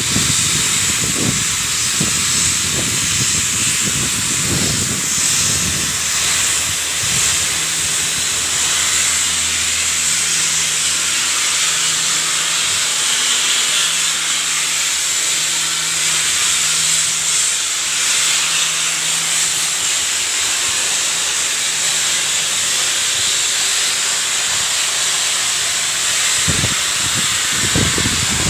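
Loud, steady hissing noise, with a faint low machine hum in the middle stretch and a few low rumbles in the first seconds and near the end.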